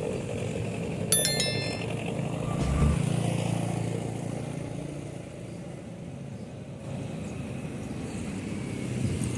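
A short, high horn blast about a second in that steps from one note to another, then a passing vehicle's rumble that swells and fades away.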